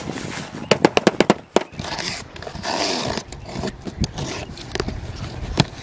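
Cardboard box being handled and slit open with a utility knife: a quick run of about six sharp clicks about a second in, then a scratchy rasp as the blade cuts through the packing tape, with scattered taps on the cardboard.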